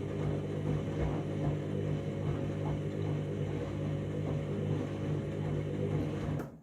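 Candy washing machine in a deep rinse: the drum motor hums steadily with uneven low rumbles as the drum turns through a high water level. The sound cuts off suddenly near the end.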